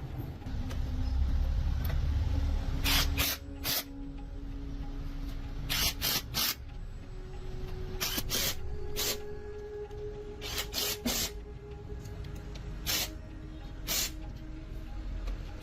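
Background music with short hissing bursts over it, mostly in quick groups of two or three, recurring every few seconds.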